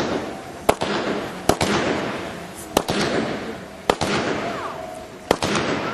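The Sizzler, a multi-shot consumer fireworks cake, firing shot after shot, five sharp reports roughly a second apart. Each report is followed by a crackling, sizzling hiss that fades before the next.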